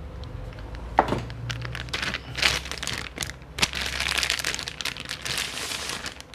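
Clear plastic bag crinkling as a portable speaker is pulled out of it and unwrapped, with a sharp knock about a second in and many small crackles and clicks.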